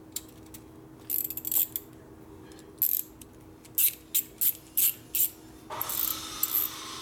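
Metal hand tools clinking as a socket and extension bar are handled: a string of sharp, irregular clicks, then a short rattling scrape near the end.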